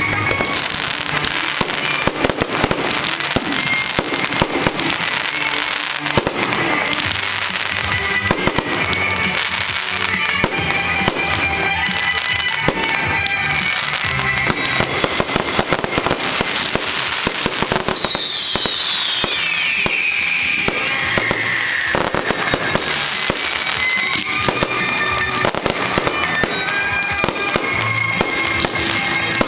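Aerial fireworks display: a dense, continuous run of cracks, pops and bangs from bursting shells and crackling stars. About two-thirds through, a long whistle falls in pitch.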